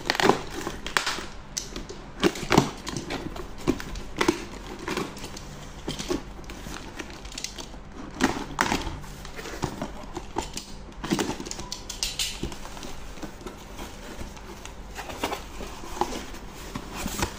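Cardboard shipping box being opened by hand: a utility knife slicing through packing tape and cardboard, clear tape crinkling, and cardboard flaps being pulled back. It comes as irregular scrapes, clicks and rustles.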